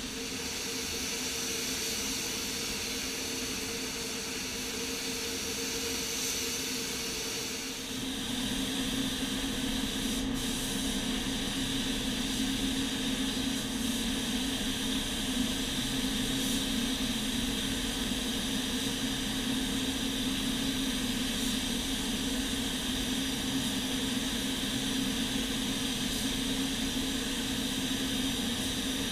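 Steady hiss of an air-powered paint spray gun over the steady hum of a paint spray booth's ventilation. About eight seconds in the sound shifts and becomes a little louder.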